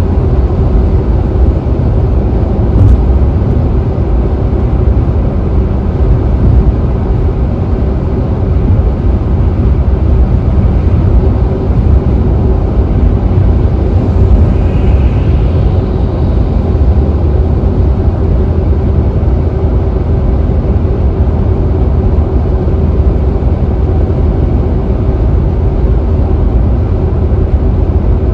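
Steady low rumble of tyre and road noise inside a car cruising at freeway speed.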